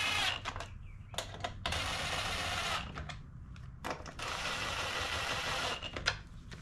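Cordless nut driver running in two short spells, about a second and a half each, as it drives the screws of the plastic engine top of a Briggs & Stratton 140cc mower engine. Light clicks and knocks of handling come between the spells.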